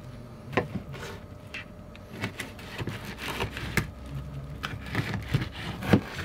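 Chef's knife cutting fish fillets on a cutting board: short knocks of the blade against the board at an irregular pace, the last one about six seconds in the loudest, over a faint steady low hum.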